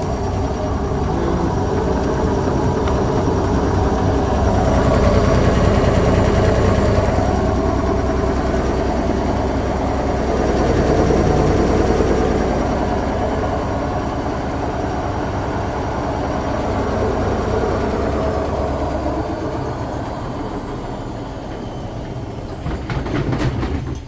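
Indesit WIL 85 front-loading washing machine on a fast spin with an unbalanced load of two wet towels: a loud, dense rattling and thumping of the drum and cabinet, running hard throughout. In the last few seconds a high whine falls in pitch as the spin slows, and the noise cuts off near the end.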